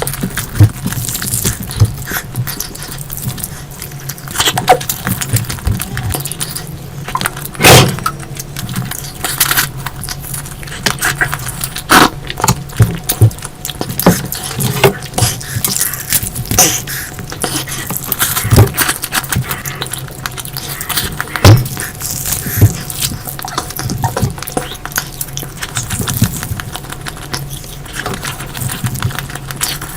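A person eating curry close to the microphone: irregular wet chewing, smacking and squelching mouth sounds with sharp clicks, over a steady low hum.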